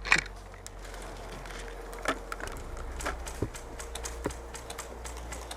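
Scattered sharp clicks of airsoft rifle shots firing single rounds, spaced irregularly about a second apart.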